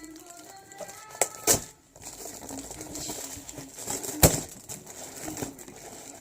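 Handling a gift box and its contents on a table: a few sharp knocks, the loudest about a second and a half in and another just after four seconds, over low rustling.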